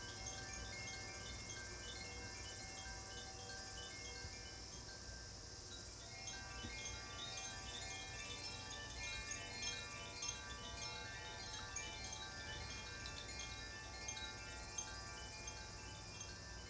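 Metal chimes ringing in a sound bath, many struck notes overlapping and sustaining. The notes thin out about four seconds in, then grow busier again about two seconds later.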